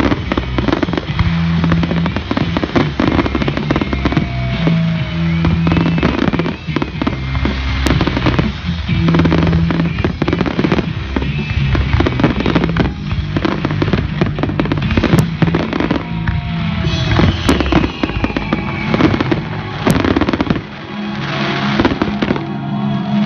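Fireworks display: a dense run of bangs and crackles, with a few whistles gliding in pitch, over loud music.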